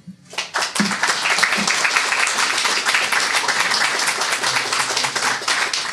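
Audience applauding, the clapping breaking out within the first second and holding steady.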